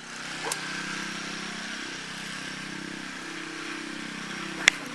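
An engine running steadily, with a single sharp click near the end.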